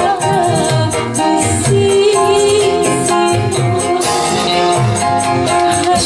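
Live band music: a woman sings a melody into a microphone over a Technics KN3000 keyboard and a two-headed kendang drum. The kendang's low strokes slide down in pitch, over a steady rhythm of light percussion ticks.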